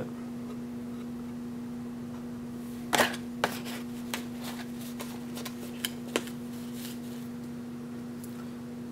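Light clicks and knocks of painting tools being handled and set down, a quick run starting about three seconds in and lasting about three seconds, the loudest at its start, over a steady hum.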